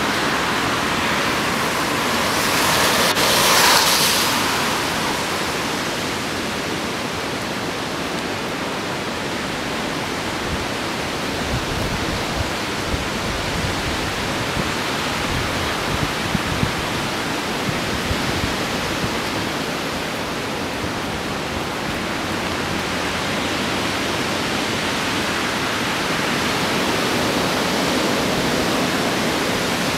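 Hurricane-force wind rushing through tall trees as a steady roar of noise. A stronger gust comes a few seconds in.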